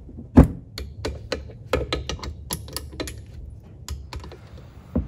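Metal parts knocking and clicking as an electric starter motor is seated onto an aluminium primary case cover. A single solid knock comes about half a second in, followed by a run of light, irregular metallic taps and clicks.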